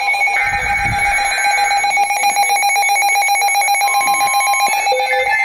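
Emergency Alert System attention signal: a loud, steady electronic two-tone alarm sounding continuously after the digital header bursts of a flood-warning broadcast. A low thump sounds under it about a second in.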